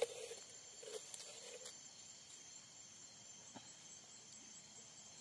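Faint, steady chorus of crickets and other night insects, with a sharp click right at the start and a few soft low sounds in the first couple of seconds.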